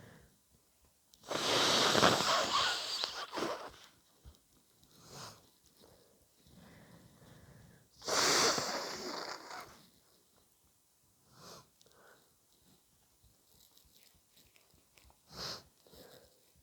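A person with a cold blowing a snotty nose, two loud blows of about two seconds each, some six seconds apart. A few short, quieter nasal sounds follow.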